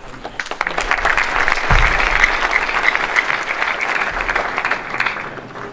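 Audience applauding, building up over the first second and fading out near the end, with a low thump about a second and a half in.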